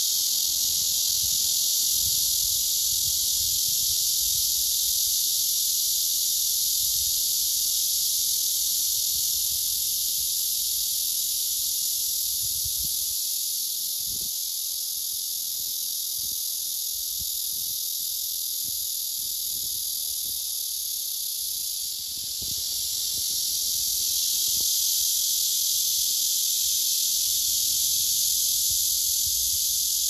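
Male black cicadas (Cryptotympana atrata) singing: a loud, continuous, high buzzing drone that dips briefly about two-thirds of the way through.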